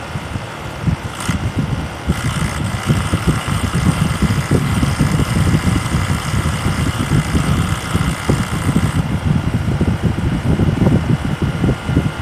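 SmartComfort heat pump running with a steady low rumble. A short burst comes about a second in, then a hissing rush starts about two seconds in and cuts off suddenly near nine seconds: the odd noise that recurs every few seconds.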